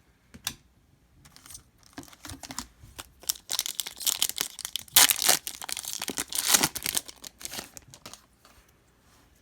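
A trading-card pack's wrapper being torn open and crinkled by hand: a run of crackling, loudest through the middle few seconds.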